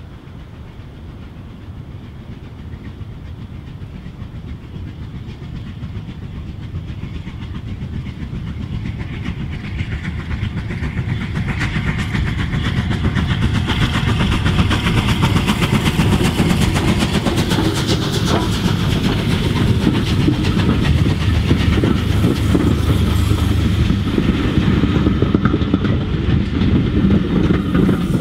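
Bulleid Battle of Britain class Pacific 34081's three-cylinder steam exhaust, working hard with a passenger train, growing steadily louder over about fifteen seconds as it approaches, then passing. The coaches follow, their wheels clicking over the rails.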